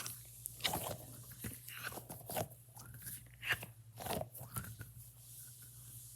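A fidget toy being squeezed and worked by hand close to the microphone, giving a string of irregular crunching, crackling clicks.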